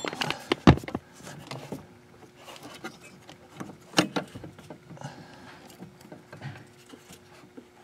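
Scattered light clicks and knocks of hands and metal parts being handled behind the brake pedal bracket under a car's dashboard, with a sharper knock about 4 seconds in. A faint steady hum runs underneath.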